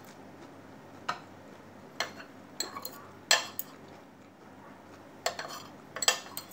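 Metal fork and spoon clinking and scraping against ceramic plates and a bowl while eating: about eight short, sharp clinks at uneven intervals, the loudest about halfway, with a quick cluster near the end.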